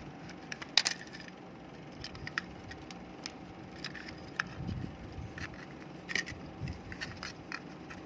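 Irregular small clicks and taps of hard plastic as a computer mouse's casing is handled and pried at to open it, the loudest about a second in.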